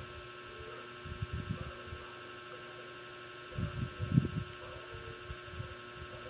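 Steady electrical hum picked up by a close-up microphone, with a few short, soft low thumps against it about a second in and again around four seconds in.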